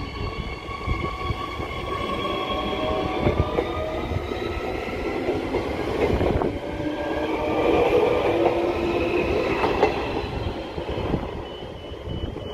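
Transperth electric multiple-unit train running along the platform, its traction motors whining in several tones that slide down in pitch and then rise again, over a rumble and clatter of wheels on rail. A repeating electronic beep starts near the end.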